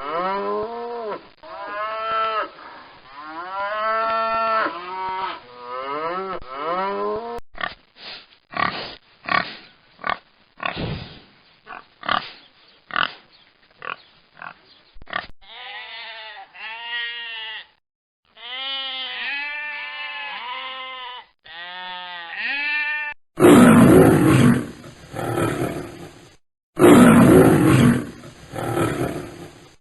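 A sequence of different animal calls. First come repeated pitched calls that bend up and down, then short grunts, then more arching pitched calls. Near the end come much louder roars.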